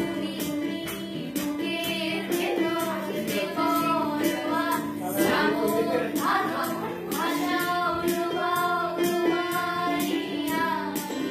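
Three women singing a song together in unison, accompanied by held chords on a Roland GW-8 electronic keyboard, with a steady beat underneath.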